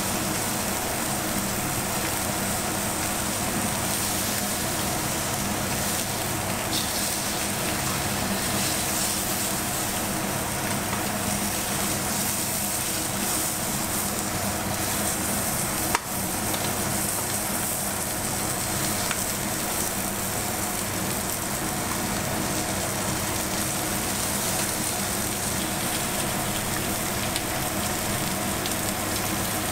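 Beef searing in hot oil in a frying pan, a steady sizzling hiss, with a steady low hum underneath and one sharp click about halfway through.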